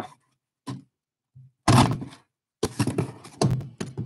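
Cardboard shipping box being handled and opened by hand: a couple of light knocks, then from about halfway a louder run of dull thunks and cardboard scraping as the flaps are worked.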